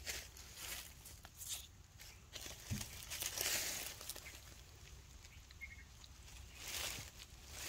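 Intermittent rustling and scuffing of dry leaf litter and clothing as a baby monkey is handled on a person's lap, loudest about three to four seconds in.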